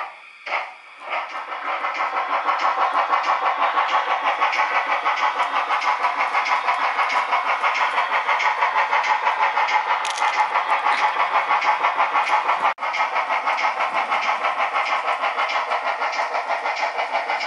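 Steam-locomotive chuffing from the sound decoder of a Trix H0 class 65 tank locomotive model: slow, separate beats at first that quicken within a couple of seconds into a fast, even beat as the locomotive gets under way, with a brief break in the sound near the end.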